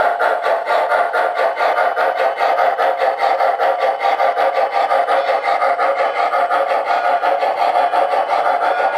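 Rapid, even steam chuffing from an MTH Proto-Sound 2 sound system in an O-gauge Shay geared steam locomotive model, played through its onboard speaker as the train runs at speed, with the rolling of the log cars on the track beneath it.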